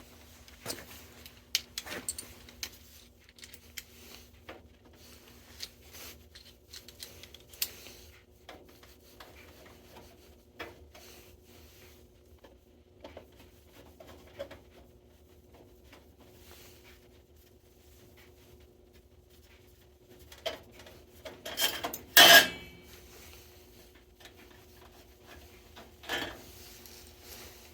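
Metal hand tools clinking and rattling as they are handled, with scattered small clicks and knocks and one louder clatter toward the end.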